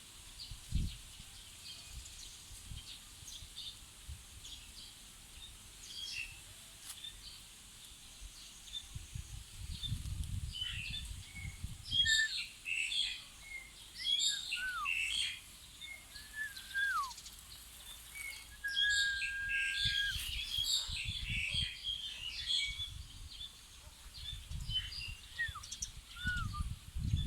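Several birds chirping and calling, busiest from about halfway through, with short falling whistles and one held, level whistle about two-thirds of the way in. Low rumbles come and go underneath.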